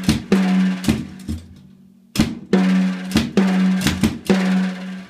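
A child plays a simple beat on a Mendini acoustic drum kit, hitting drums with sticks. The short pattern is played twice with a brief pause between. The drums ring with a steady hum after the hits.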